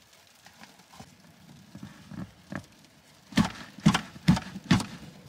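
Four dull knocks in quick succession, about half a second apart, starting about three and a half seconds in, as an aftermarket centre armrest box is handled and tipped up on the car seat. Before them only faint rustling and small clicks.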